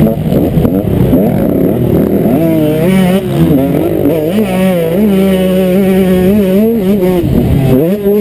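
Motocross bike engine heard from a helmet-mounted camera, revving up and dropping back again and again as the rider accelerates and shifts along the track, holding a steady high pitch for a few seconds in the middle and falling off sharply near the end.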